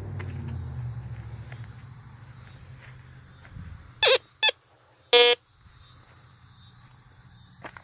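Teknetics Minuteman metal detector giving three short beeps about four to five seconds in as its coil sweeps over a stack of bent nails, a pull tab and a coin. A car hum fades out at the start.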